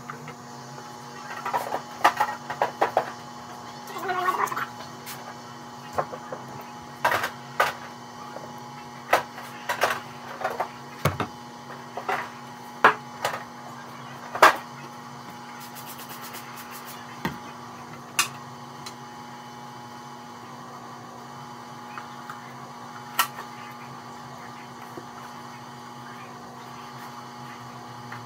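Scattered clicks and knocks of containers and fridge parts being handled during fridge cleaning, busiest in the first half, over a steady electrical hum.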